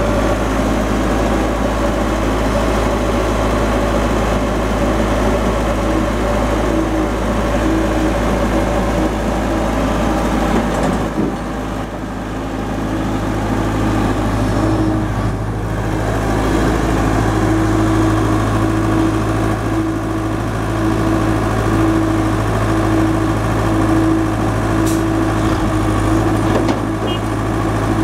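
Heavy diesel engine running steadily at low revs. It eases off about eleven seconds in and builds back up a few seconds later.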